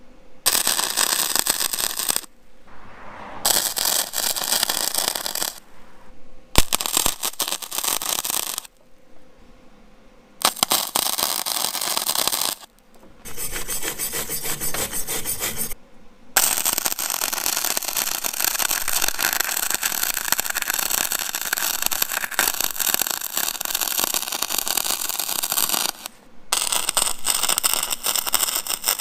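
Wire-feed (MIG) welding arc crackling and sizzling on steel tube: several tack welds of about two seconds each with short gaps, then a long bead lasting about ten seconds in the second half. Partway through, a steel wire brush scrubs the joint.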